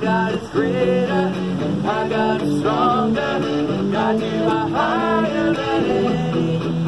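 Live worship music: an electric guitar played through a small amplifier, with singing over it.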